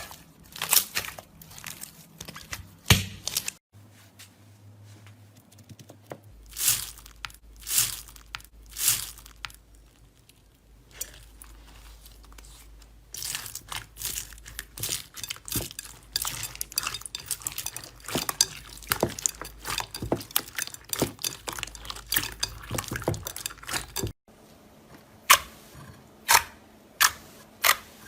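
Slime being handled and squeezed, giving many sharp pops and clicks: a few single loud pops, then a long dense run of crackling clicks. The background changes abruptly twice, as one short clip cuts to the next.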